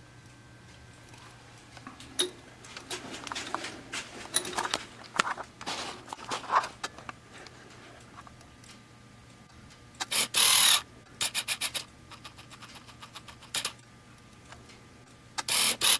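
Close handling sounds of small metal lathe parts: scattered scrapes, clicks and rubs. Two loud short rushes of noise come about ten seconds in and just before the end, the first followed by a quick run of clicks.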